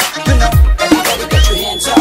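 Background music with a heavy beat: deep falling bass thumps about twice a second under sustained melodic and vocal-like lines, in an Afrobeat or hip-hop style.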